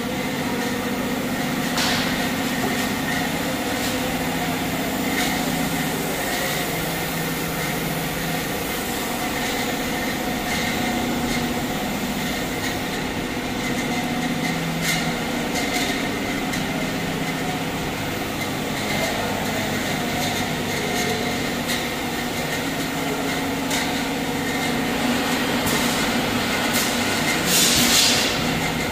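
Machinery of a plastic extrusion plant running steadily: a continuous low motor hum with a higher whine, broken by occasional clicks and knocks, and a brief louder burst of noise near the end.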